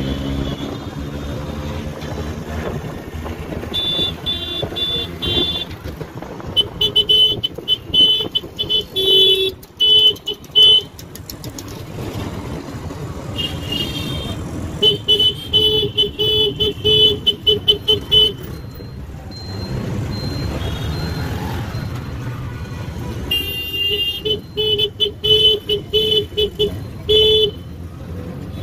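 A high-pitched vehicle horn beeped in rapid runs of short toots, several long stretches of it, over the steady running of an auto rickshaw's engine in street traffic.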